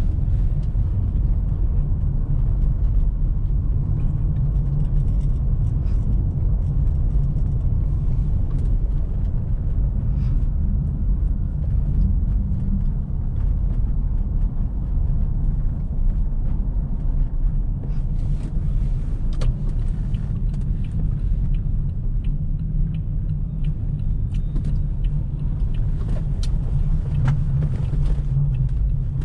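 Car driving on snowy roads: a steady low rumble of tyres and engine, with faint scattered clicks in the second half.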